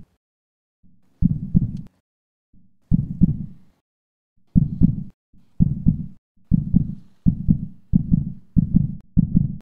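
Heartbeat sound effect: low double thumps that quicken steadily, from about one every one and a half seconds to about two a second near the end.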